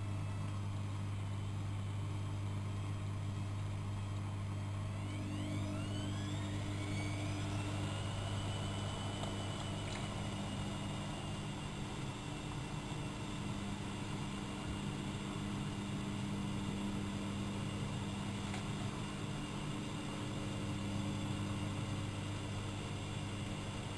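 AEG Electrolux Lavamat L6461 washing machine running with a steady low hum. About five seconds in, a motor whine rises over two or three seconds and then holds at a steady pitch.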